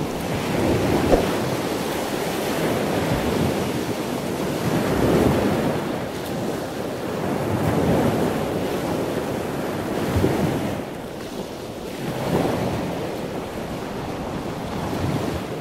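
Ocean surf: a wash of noise that swells and falls back every two to three seconds.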